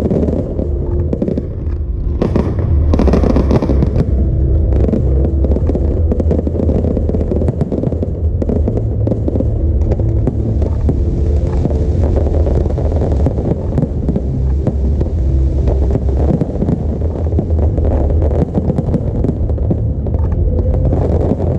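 Fireworks display in a continuous barrage: dense, overlapping bursts and crackle over a heavy low rumble.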